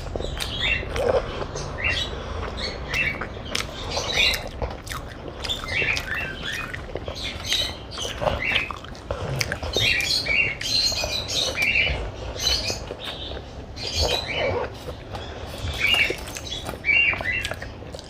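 Close-up eating sounds: a person chewing and smacking their lips, a steady run of irregular wet clicks and smacks.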